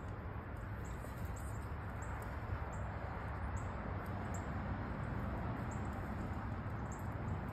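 Steady outdoor background noise, mostly low rumble, with faint high-pitched chirps repeating about every half second.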